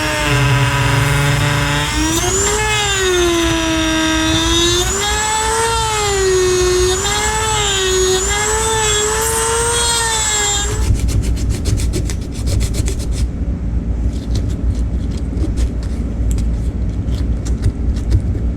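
Dremel rotary tool running at high speed, deburring the freshly cut holes in a fuel tank sending unit. Its whine sags and recovers in pitch as the bit bites and lets off, and it stops about eleven seconds in. Clicking and scraping from handling follow.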